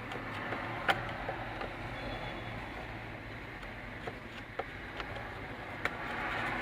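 Scattered small clicks and taps, the sharpest about a second in and a few more near the end, over a steady low hum: hand tools and plastic trim being handled while a screw is taken out of the directional lever cover.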